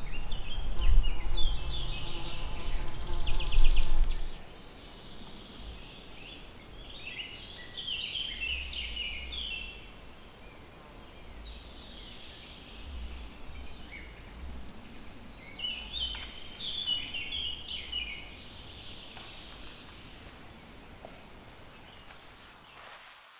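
Wild birds singing in short chirping phrases over a steady, high, thin insect drone. A louder low rumble fills the first four seconds.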